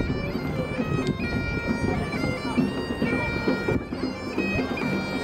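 Bagpipes of a marching band playing a tune, held notes stepping from pitch to pitch over a steady drone.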